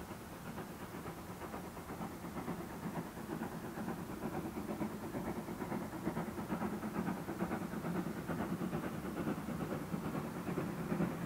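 A train on a heritage railway line approaching, its rhythmic running sound growing steadily louder.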